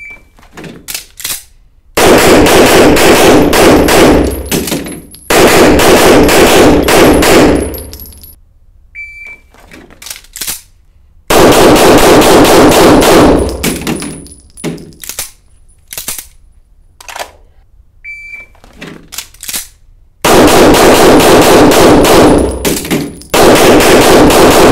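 Three times over, a shot timer's short start beep, then about two seconds of small handling clicks, then long strings of rapid semi-automatic pistol fire split by a brief pause for a reload. The shots ring in the indoor range.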